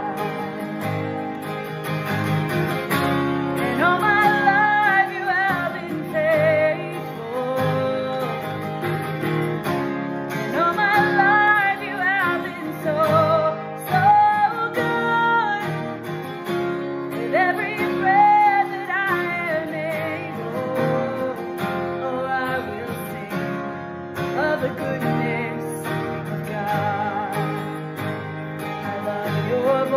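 A woman sings a worship song over two strummed acoustic guitars.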